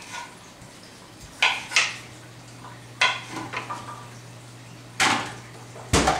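Kitchen knives knocking on plastic cutting boards as vegetables are cut: about six separate sharp knocks with a brief ring, some in quick pairs.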